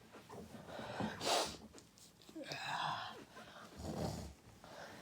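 A person's short gasping, wheezy breaths, a few in a row, the catching breaths of a sneeze coming on.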